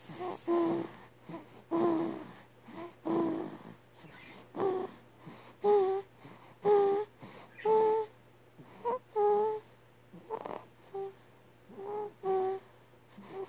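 Newborn baby's sleep noises: a run of short, high squeaky grunts, roughly one a second, each on a fairly steady pitch.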